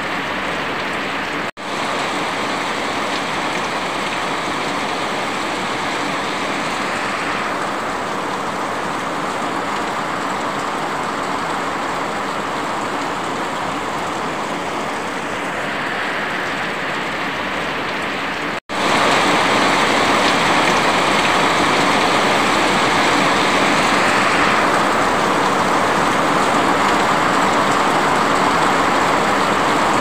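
Heavy rain: a steady, even hiss. It drops out for an instant twice, about a second and a half in and again past the middle, and comes back a little louder after the second break.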